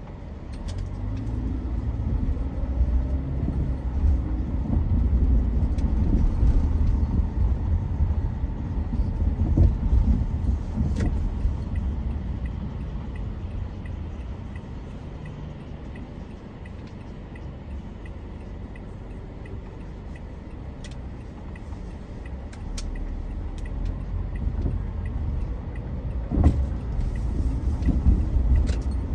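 Car driving, a low road-and-engine rumble that swells early on, eases through the middle and builds again near the end, with a few sharp clicks or knocks.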